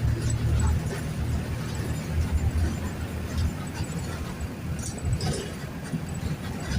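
Mercedes-Benz OF-1519 BlueTec 5 bus's diesel engine running, heard from inside the bus: a low, uneven rumble with light rattles over it.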